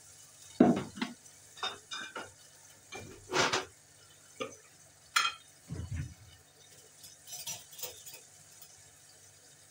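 Glass spice jars being opened, handled and set down, with a teaspoon clinking, while spices are measured out: scattered clicks and knocks, the sharpest about half a second in, and a duller thud around six seconds in.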